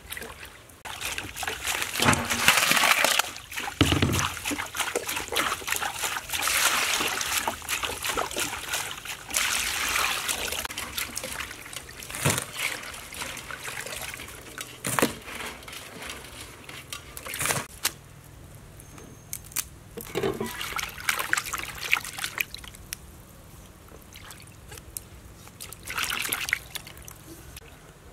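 Water sloshing and splashing as food is washed by hand in plastic basins: raw blue crabs rinsed in a colander, then leafy herbs swished in a basin of water. Scattered sharp knocks come through the splashing, and it grows quieter in the second half.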